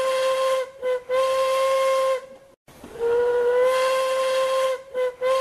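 Steam locomotive whistle blowing steady long blasts, each pattern broken by a short toot, with steam hiss beneath the tone. The sequence runs twice with a brief pause between.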